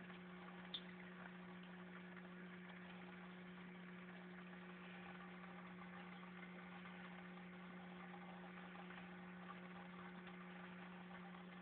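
Near silence: a steady low hum with a fainter higher tone above it, and one faint tick about three-quarters of a second in.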